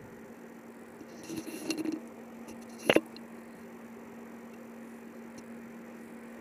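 Hands rubbing wet spice paste into mackerel in a bowl: soft squelching, with one sharp click about three seconds in, over a faint steady hum.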